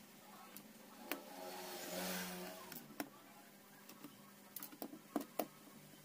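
Light clicks and ticks of a screwdriver and small screws against a laptop's plastic bottom case as the screws are taken out, with a quick cluster of clicks near the end.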